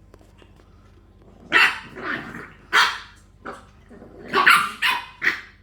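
English bulldog puppies barking in play: a quick series of short, sharp barks starting about a second and a half in.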